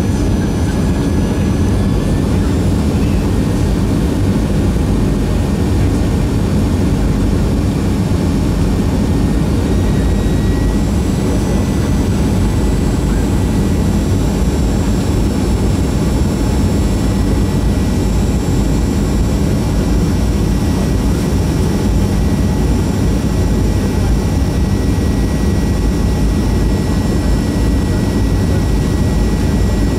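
Cabin noise of a Boeing 737-300 on final approach, heard from a window seat beside the wing: a steady roar of its CFM56-3 turbofan engine and airflow, with a thin high whine over it.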